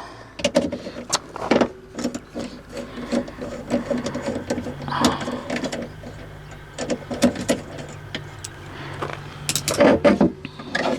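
Clicks, knocks and rattles of a window regulator and its motor being handled and refitted inside a car door. A low steady mechanical hum joins in from about the middle for several seconds.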